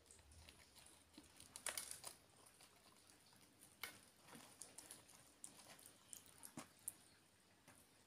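Crispy batter on deep-fried eggplant crackling faintly as fingers tear and pull the pieces apart. It comes as scattered small crunches and ticks, with a denser burst of crackling about two seconds in.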